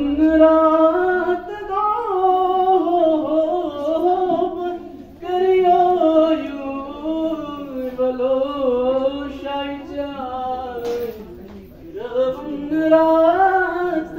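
A boy singing solo into a handheld microphone, long held notes that slide up and down in pitch, with a short break for breath about eleven seconds in.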